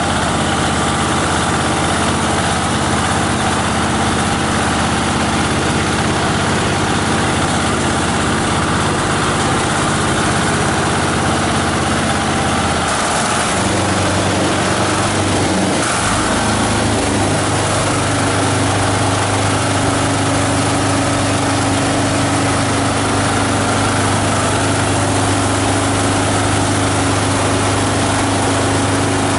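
The grinder's 18 HP diesel engine running steadily. Its engine note shifts about halfway through, then holds steady again at the new speed.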